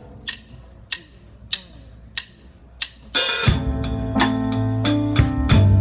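A drummer's count-in: five sharp, evenly spaced clicks about 0.6 s apart. About three seconds in, a live band comes in on the beat with drum kit and cymbals over sustained bass and chords.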